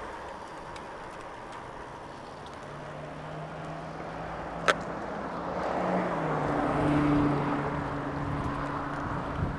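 Wind and tyre noise from a moving bicycle, with a motor vehicle passing close by. Its engine hum builds, drops in pitch as it goes past and peaks a couple of seconds later. One sharp click comes about halfway through.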